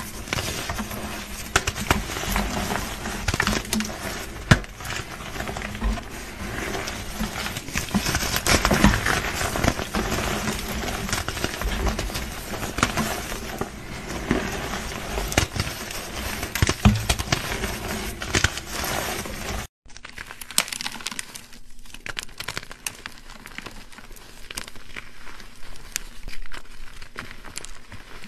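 Hands crushing and crumbling blocks of dyed gym chalk into powder: dense crunching and crackling full of small sharp snaps. About twenty seconds in the sound cuts off for a moment, and a quieter stretch of crumbling follows.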